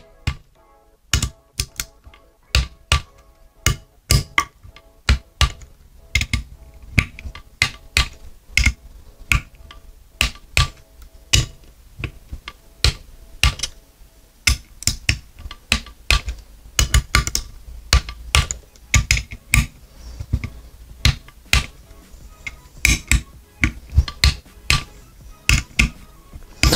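Click-type torque wrench ratcheting as crankcase bolts are tightened to 10 Nm, giving many sharp metallic clicks in uneven runs, over faint background music.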